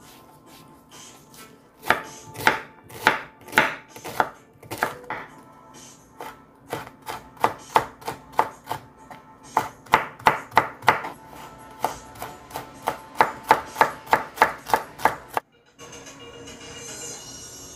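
Kitchen knife chopping onion and then chili peppers on a bamboo cutting board: a run of sharp knocks on the wood, coming about three a second in the second half. The chopping stops abruptly near the end and a soft hiss follows.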